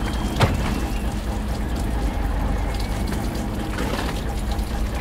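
Steady running and splashing of water with the low, even hum of a fishing boat's engine underneath, and one sharp click about half a second in.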